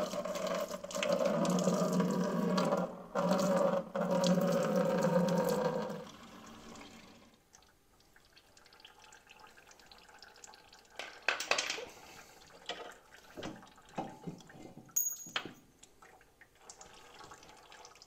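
Antifreeze pouring in a steady stream from a manifold bolt hole in a Ford 8N engine block into a bucket, breaking off briefly twice and stopping about six seconds in. After that come a few faint metal clicks and knocks.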